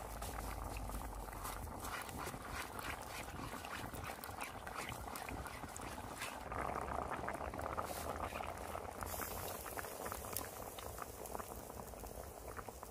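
Wood fire crackling with many small sharp pops under a cast-iron pot of soup bubbling at a simmer.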